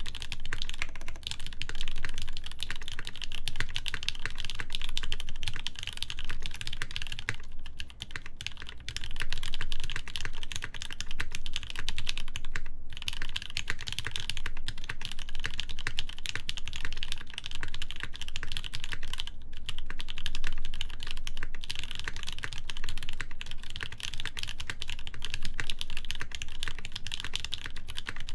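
Steady, fast typing on a Hineybush Ladybird mechanical keyboard with lubed Gateron Ink linear switches on an FR4 plate and GMK ABS keycaps: a dense stream of keystrokes, broken by a few short pauses.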